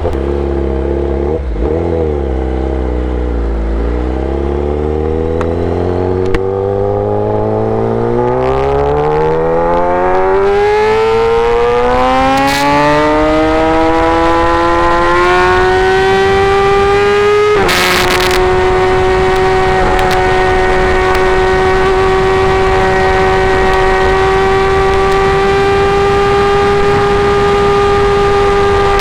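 Kawasaki ZX10R's inline-four through an SC Project full exhaust system, running low for a few seconds, then climbing steadily in pitch through the revs. About two-thirds of the way in there is a click and a slight dip in pitch, and the engine then holds a steady high note.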